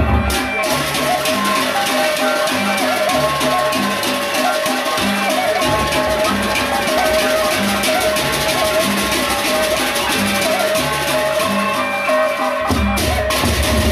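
Gendang beleq ensemble playing: large double-headed barrel drums and clashing hand cymbals in a busy rhythm, under a wavering high melody line. The deep drum strokes drop out briefly twice.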